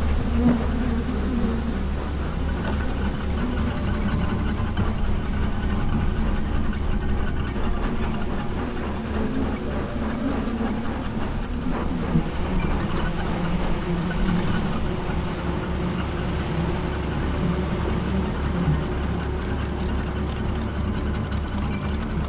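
An engine idling steadily beneath the buzzing of honeybees around their hives. Near the end comes a run of quick clicks as a ratchet strap is tightened over the stacked hives.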